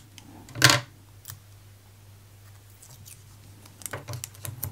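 A piece of adhesive tape being cut with scissors: one short, sharp snip about half a second in, then a few light clicks and rustles of handling near the end.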